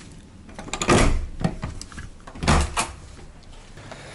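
A room door being opened and shut: two loud thumps about a second and a half apart, with lighter clicks of the latch and handle between them.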